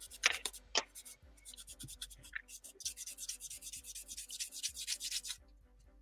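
Rapid sanding strokes on a small plastic model-kit part, about ten a second. Two sharp clicks come within the first second, then a pause. The strokes start again and stop abruptly about half a second before the end.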